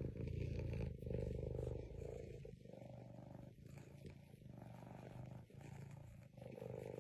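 A cat's low, pulsing rumble in breath-length stretches, louder for the first two and a half seconds and fainter after.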